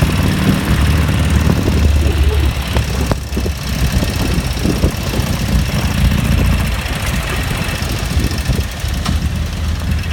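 Sidecar motorcycle engine running at low revs while riding along a wet city street: a steady low throb under the hiss of tyres on the wet road.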